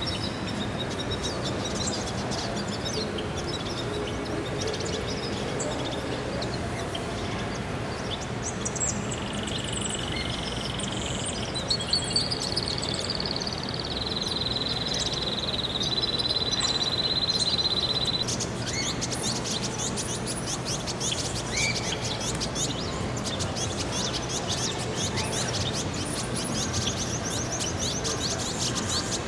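Many small birds chirping and twittering in an aviary. A long steady high whistling tone holds from about nine to eighteen seconds in, and the chirping turns dense and rapid after that.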